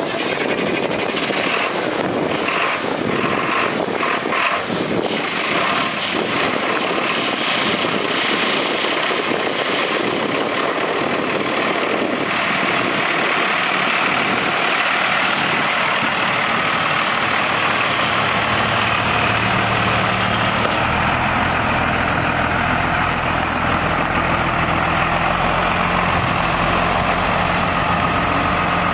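Diesel truck engine idling steadily, its low hum becoming stronger about two-thirds of the way through, with wind buffeting early on.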